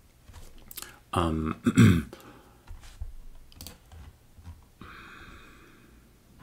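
A man clearing his throat in two short, loud voiced bursts, followed by a few faint clicks.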